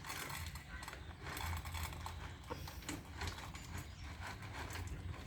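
Kitten eating, its chewing making a quick, irregular run of small wet clicks and smacks.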